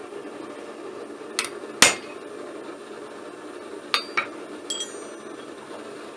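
Hammer blows on hot mild steel at the anvil: five sharp metallic strikes at uneven intervals, the loudest about two seconds in, the last one ringing. Under them the double-burner gas forge runs with a steady rushing sound.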